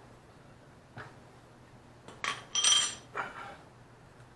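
Metal parts knocking and clinking together, with a short metallic ring: a light knock about a second in, then a cluster of clinks a little past the middle.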